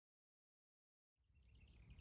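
Silence, then about a second in, outdoor ambience fades in: a low rumble with faint bird chirps.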